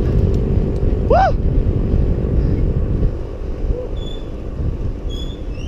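Wind rushing over the microphone of a handlebar-mounted camera on a moving bicycle, with road noise from the tyres; it eases a little about three seconds in. A short rising-and-falling call cuts through about a second in.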